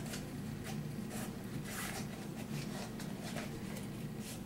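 Faint rustling and light scraping of hands handling an iPad in its black Apple case, a series of soft scratchy strokes.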